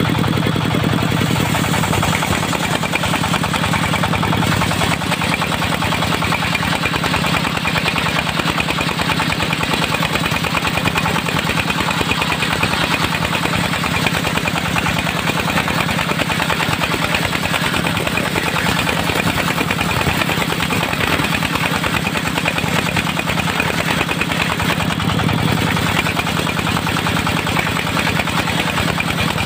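Diesel engine of a mobile circular sawmill running steadily, with a constant drone and no pauses or changes in speed.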